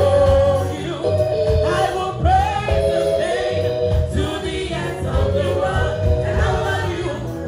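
Live gospel music: a woman singing lead into a microphone with backing vocalists, over accompaniment with a steady beat.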